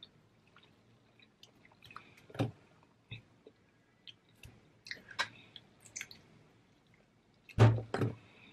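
A person chewing and biting a chicken wing close to the microphone: wet mouth clicks and small chewing sounds at irregular moments, with a louder thump near the end.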